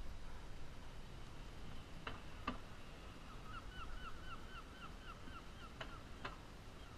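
A gull calling: a quick run of short notes, about five a second for two or three seconds, in the middle. A pair of sharp clicks comes before the calls, and another pair comes after them.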